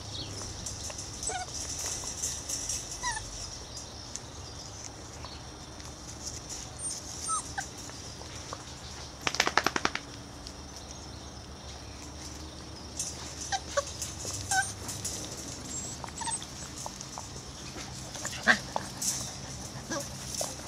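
Six-week-old Irish Terrier puppies whimpering, with short high squeaks and yips scattered through. A quick run of rattling clicks comes about halfway, over a steady high hiss.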